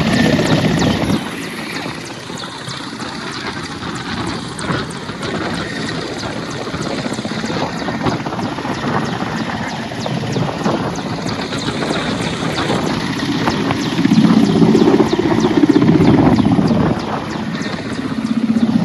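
Helicopter rotor and engine running, a steady loud chopping noise. It eases about a second in and swells again about fourteen seconds in before easing off.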